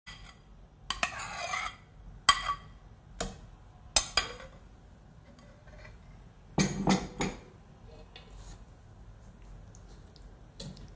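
A metal spoon scraping and tapping mashed pumpkin out of a ceramic bowl into a stainless steel mixing bowl: a few sharp clinks and short scrapes, spaced a second or more apart. Near the end a wire whisk starts stirring in the bowl.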